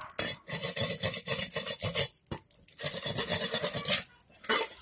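A knife scraping along a fish, a rasping scrape in two long bouts of about two seconds and a second and a half, with a short scrape near the end.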